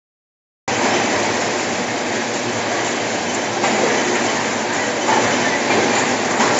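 Cereal bar turntable feeder running: the stainless steel disk spinning while bars tumble from the hopper and slide and clatter against the metal and each other, a steady dense rattle. It cuts in suddenly less than a second in.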